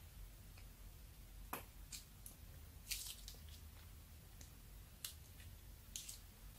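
Clear slime squeezed from a plastic piping bag onto a tray of slime: a handful of faint, scattered wet squishes and small crackling pops, the strongest about a second and a half in, around three seconds, and near the end.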